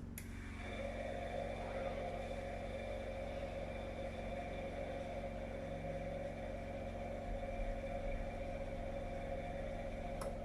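Washing machine drum spinning at about 800 rpm in its final spin cycle, a steady whine over a low hum, with a sharp click just after the start and another near the end. It is running on power from a 208 cc petrol generator.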